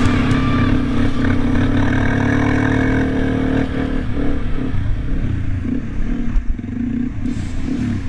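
Dirt bike engine running as it is ridden across beach sand: steady revs for the first three and a half seconds, then the throttle is eased and the engine note drops and wavers.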